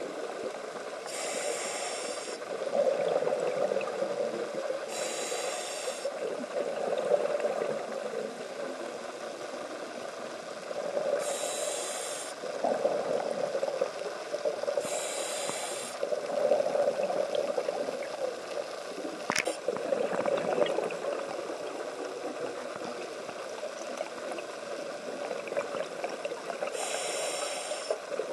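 Scuba diver breathing through a regulator underwater: five short, high-pitched hissing inhalations, each followed by a longer bubbling rumble of exhaled air. A single sharp click comes about two-thirds of the way through.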